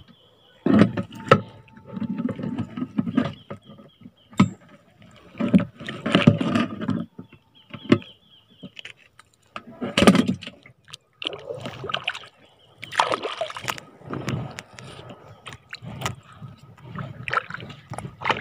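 Sea water splashing and sloshing in irregular bursts, from waves near a reef.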